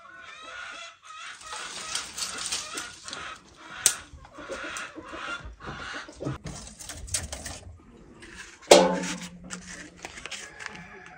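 Hens clucking, and dry brushwood twigs rustling and snapping as they are pushed into a clay tandoor. Near the end a louder sound with a steady low tone comes in suddenly.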